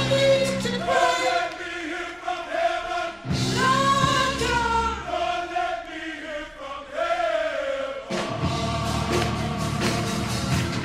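Gospel mass choir singing with band accompaniment. The low accompaniment drops out twice, leaving the voices to carry on alone before the full sound returns.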